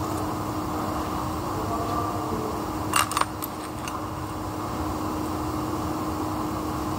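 Steady machine hum with a constant low tone in the background. About three seconds in, two or three sharp metallic clicks come close together as the electric motor's flange is handled against the gearbox housing.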